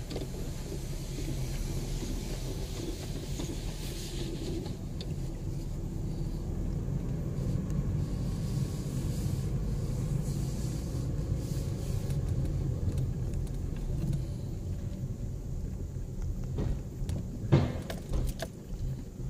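Car's engine and tyres rumbling steadily, heard from inside the cabin as the car drives slowly forward. A few sharp knocks come near the end, the loudest about two seconds before the close.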